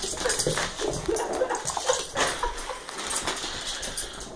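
A dog making short whines and yelps, with crackling and rustling of torn gift wrap and light clattering on a wooden floor.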